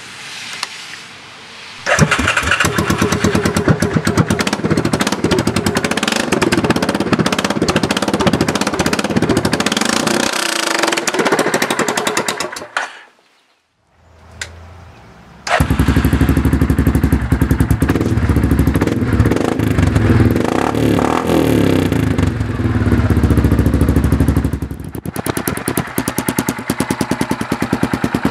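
Yamaha Wolverine 450 ATV's single-cylinder four-stroke engine started and run with no exhaust fitted, a loud, rapid pulsing straight off the bare exhaust port. It cuts out briefly after about 13 seconds, comes back louder with a heavier low note, and then settles to a quieter, even run near the end.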